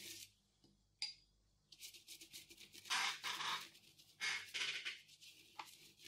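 Flat paintbrush scrubbing thick acrylic paint across a textured collage of paper and string, in short scratchy strokes about one a second.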